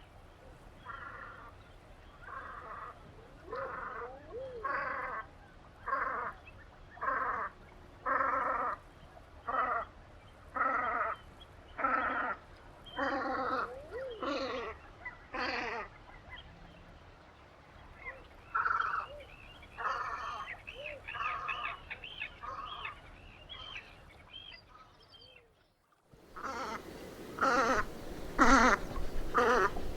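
Velvet scoters calling: a long series of short, harsh calls at about one a second. The calls break off briefly near the end, then resume louder.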